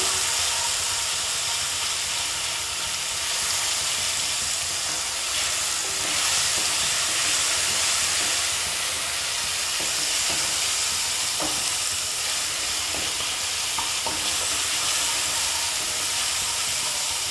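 Sliced onions and ginger-garlic paste sizzling in hot oil in a kadhai as a spatula stirs them: a steady frying hiss. The paste is being sautéed to cook off its rawness.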